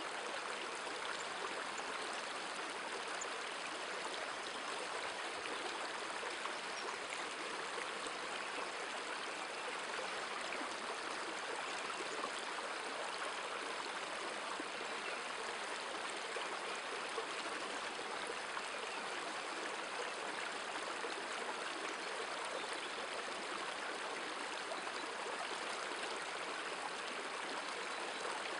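River water flowing over a stony bed, a steady unbroken rush.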